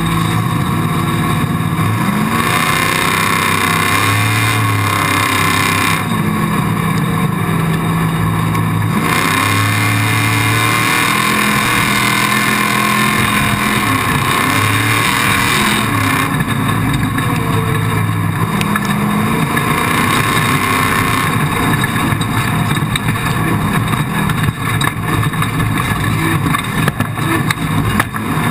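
Off-road race vehicle engine running hard, its pitch rising and falling again and again as it revs up and eases off, under a steady rushing noise.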